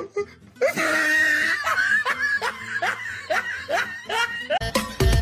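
A person laughing in a quick run of short rising laughs, about three a second. Music with sharp percussive hits comes in near the end.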